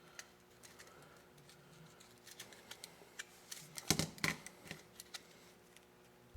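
Light clicks and taps of a soldering iron, wire and small parts being handled and positioned on a work surface, irregular, with a brief cluster of louder knocks about four seconds in.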